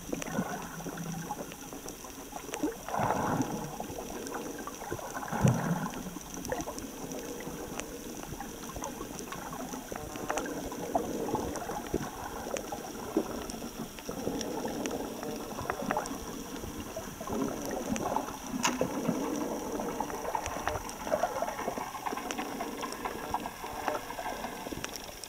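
Underwater sound picked up by a submerged camera: muffled sloshing and gurgling water with scattered sharp clicks and crackles, swelling louder about three seconds in and again around five and a half seconds.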